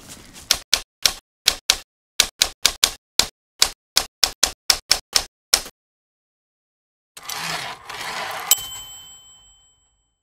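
Typewriter sound effect: about eighteen quick, irregular keystroke clacks, a pause, then a carriage-return swish ending in a bright bell ding that rings on.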